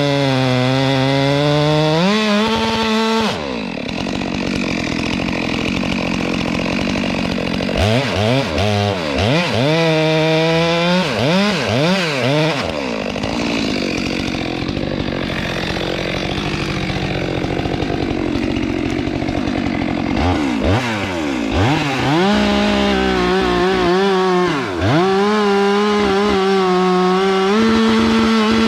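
Chainsaw running hard, revving up and down again and again as it cuts into a tree, with stretches of steady full-throttle cutting between the revs.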